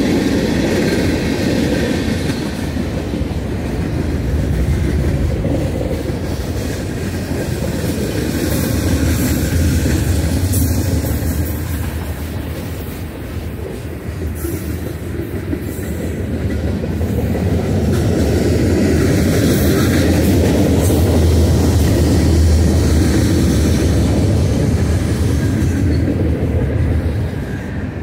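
Freight cars of a mixed freight train rolling past a grade crossing: covered hoppers, tank cars, boxcars and gondolas. The wheels on the rails make a continuous low rolling noise that eases slightly midway and swells louder again in the second half.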